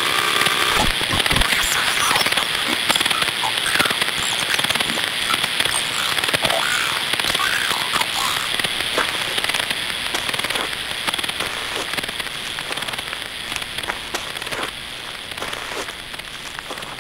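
Television static: a dense crackle of clicks over a steady hiss, gradually getting quieter.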